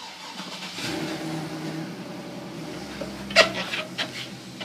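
Knocks of a heavy compressor being shifted into place inside a condensing unit, the loudest sharp knock about three and a half seconds in and a smaller one near the end. Under them runs a steady low hum.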